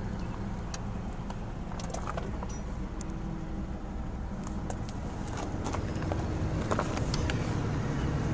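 A car engine idling steadily, with a few scattered light clicks.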